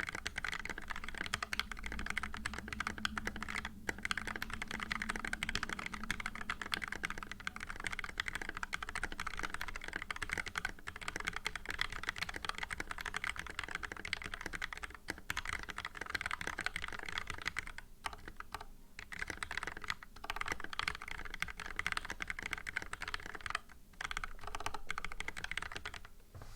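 Fast, continuous typing on a Cooler Master MasterKeys S mechanical keyboard with lubed Gateron Yellow linear switches, Tai Hao ABS keycaps and lubed stabilisers: a dense run of keystroke clacks with a few brief pauses.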